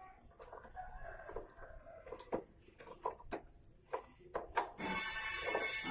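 Metal clicks and clinks of a spanner working a motorcycle's chain adjuster bolts, with chickens clucking in the background. Near the end comes a loud harsh hiss lasting about a second.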